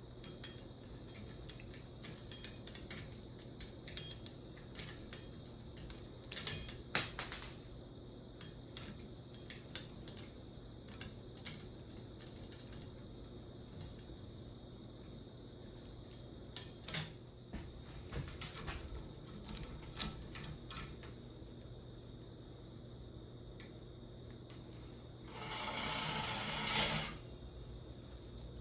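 Tools and small metal bicycle parts clinking and clicking in scattered knocks, with a rough noise lasting about a second and a half near the end.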